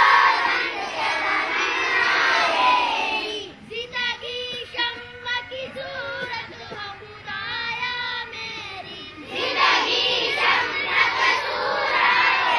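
A group of schoolgirls singing a prayer together in unison. About three seconds in the group drops out and a single girl's voice carries the line alone, quieter, until the whole group comes back in about nine seconds in.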